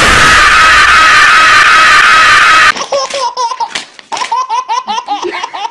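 A very loud jumpscare scream cuts in suddenly and stops dead after under three seconds. A baby then laughs in quick repeated bursts.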